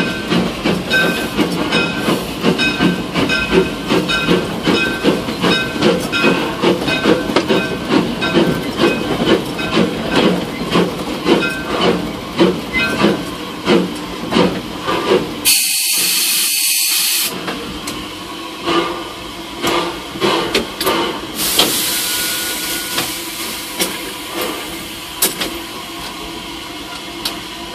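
A 1910 Vulcan 0-4-0 steam locomotive running, heard from inside its cab: a rhythmic chuffing clatter of about three beats a second that slows and fades after about fifteen seconds. Two bursts of steam hiss come over it, a short one about halfway through and a longer one of a few seconds soon after.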